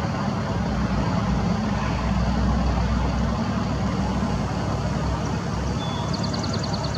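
Steady low rumble of distant engine noise, like far-off traffic. Near the end there is a short, rapid run of high ticks.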